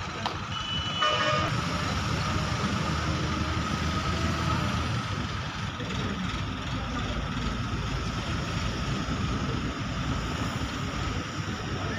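Steady rumble of heavy diesel vehicle engines and traffic, with a short horn about a second in.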